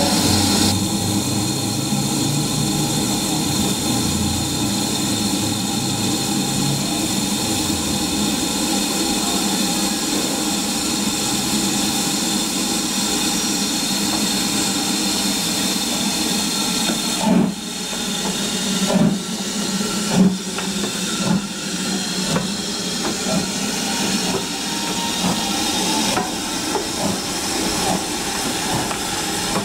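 BR Standard Class 4 2-6-0 steam locomotive hissing steadily as steam escapes from its cylinder drain cocks while it stands. About halfway through, irregular exhaust beats begin and come slowly closer together as it starts to pull away, with the steam hiss carrying on under them.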